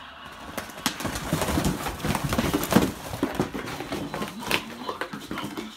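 A dog grumbling and growling low in its throat while it roots in and tears at a paper gift bag, with irregular rustling and crinkling of paper. The sound starts up about a second in.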